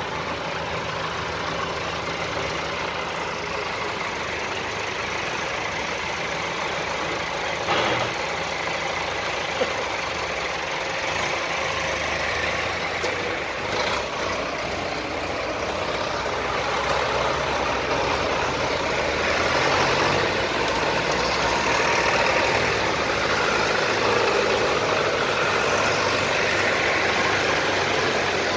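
Tractor engines running as a line of tractors drives slowly past one after another, with a couple of sharp knocks in the first half. The engine noise grows louder over the second half as the next tractor comes closer.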